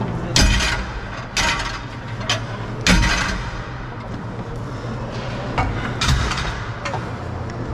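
Sharp clacks of cosom hockey sticks and the plastic ball striking, about seven hits at uneven spacing, each with a short echo. The loudest come near the start and about three seconds in.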